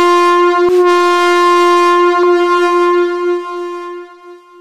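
Electronic time-up buzzer of a judo scoreboard: one loud, steady horn-like tone as the match clock runs out, signalling the end of the bout. Two sharp clicks cut into it, under a second in and about two seconds in, and the tone dies away in the last second.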